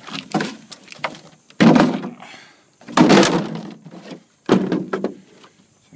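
Loose riding-mower hood being knocked and set back onto the machine: about five hollow bangs and clatters, the loudest a little under two seconds in and about three seconds in. The hood is not bolted on because its mounting is broken.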